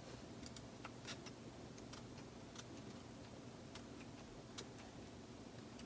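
Faint, irregular small clicks and ticks, about eight of them spread unevenly, over quiet room tone.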